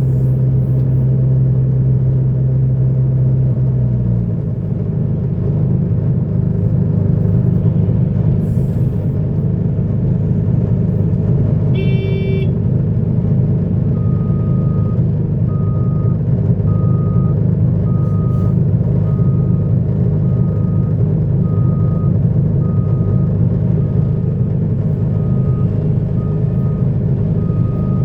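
Heavy diesel earthmoving machinery running steadily, its engine note shifting a few seconds in. There is a brief horn toot about halfway, then a reversing alarm beeping about once a second.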